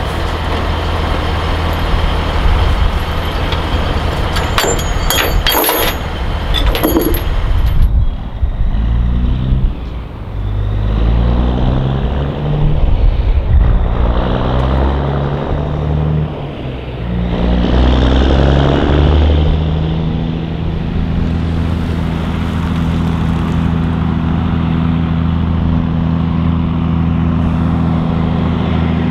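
Heavy truck diesel engine pulling away, its pitch climbing and dropping in steps through several gear changes, then running at a steady pitch. Sharp metallic clatters come in the first several seconds.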